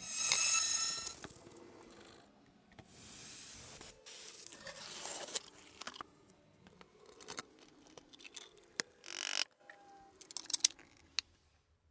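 Hands and small tools working on a model boat: scattered clicks, taps and scrapes, with a short hissing burst in the first second and another near the end.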